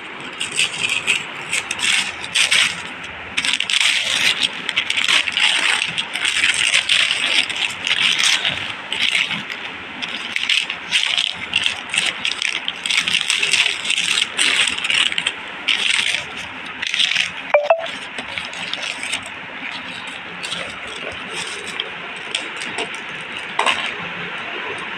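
Gift wrapping paper being torn off and crumpled by hand, a dense crackling rustle full of quick rips. It is heaviest for the first two-thirds and then thins out to lighter handling.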